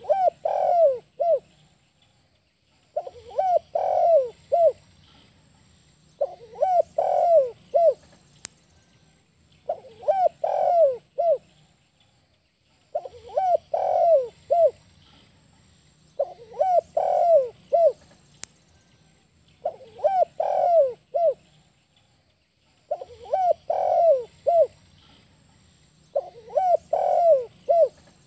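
Spotted dove in breeding condition cooing its 'kuk 1' song: a short phrase of a few falling coos, repeated about every three seconds, nine times over. Faint chirps of other birds in the background.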